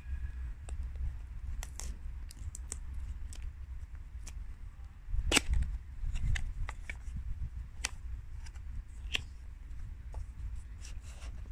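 Cardboard smartphone box being opened by hand: a series of separate sharp clicks and snaps as the paperboard lid and flaps are pulled free, the loudest about five seconds in, over a steady low rumble.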